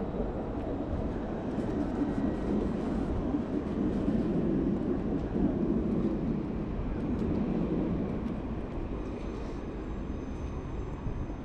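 A passing vehicle: a low rumble that swells to a peak about halfway through and then fades away.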